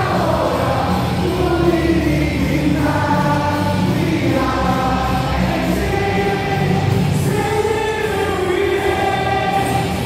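Baseball stadium crowd singing a team cheer song together in unison, with backing music, loud and continuous.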